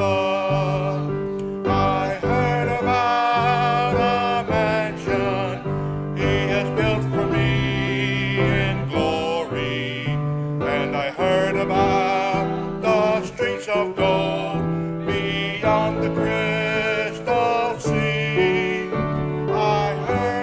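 A hymn sung with instrumental accompaniment: wavering sung melody lines over steady held bass notes.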